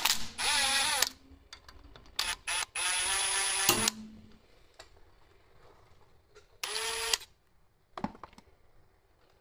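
Cordless drill-driver running in several short bursts, its whine wavering and rising as it spins up, backing a Torx bolt out of a Ford 3V cam phaser. A sharp metallic click comes about eight seconds in.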